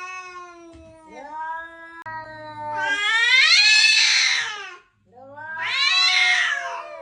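Domestic cat yowling: a string of long, drawn-out meows, the two loudest about halfway through and near the end, each rising and then falling in pitch.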